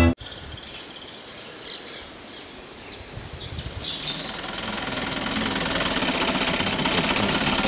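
A few short bird chirps over quiet outdoor background, then from about three to four seconds in the sound of an Isuzu NPR 300 truck driving along a dirt road rises: engine and road noise, growing louder and then holding steady.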